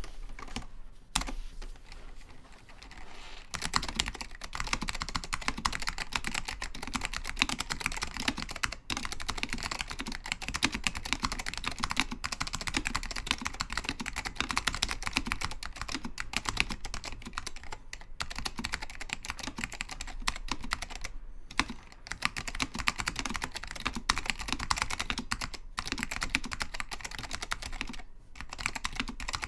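Typing on a custom 60% mechanical keyboard with Alps Orange tactile switches, PBT Apple Extended Keyboard keycaps and a 5 mm acrylic plate. A few sparse keystrokes come first, then from about three and a half seconds in a fast, continuous run of keystrokes with a few brief pauses.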